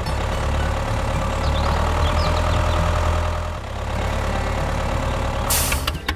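Tractor engine idling steadily, with a short hiss near the end.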